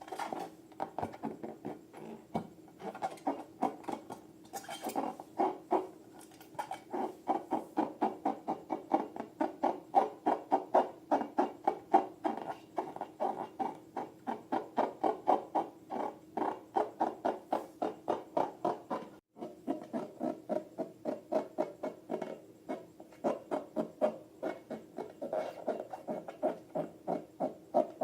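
Slime being squished and kneaded by hand, making a quick, steady run of squishing sounds, about four or five a second.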